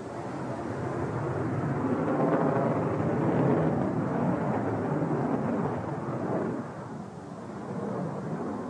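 MiG-29 jet fighter flying past, its engine noise swelling over the first two to three seconds, holding, then dropping away about six and a half seconds in, with a smaller swell near the end.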